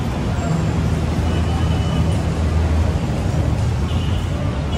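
Street traffic noise: a steady rumble of engines and passing vehicles on a busy city road.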